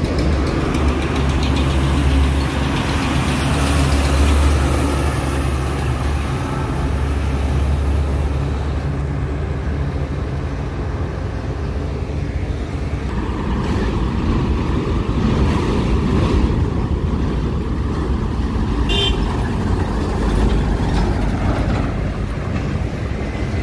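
Highway traffic going by: heavy truck and other vehicle engines with a deep rumble and tyre noise. A short horn toot sounds about three-quarters of the way through.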